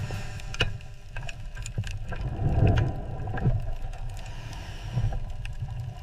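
Low rumbling drone with scattered sharp metallic clicks and ticks, and a louder swelling groan about two and a half seconds in. This is salvage-rig sound design as lifting tension comes onto the recovery cables.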